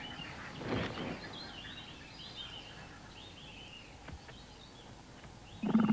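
Faint natural outdoor ambience with a run of short bird chirps, a brief soft swell of noise about a second in and a small click later. Right at the end a loud, low, steady sound sets in.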